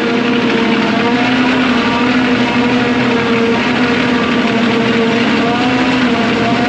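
Heavy farm machine's engine running steadily under load, a constant hum with its overtones holding nearly even pitch.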